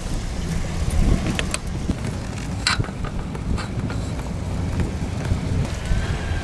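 Wind buffeting the microphone in a steady low rumble, with a few light clicks scattered through it.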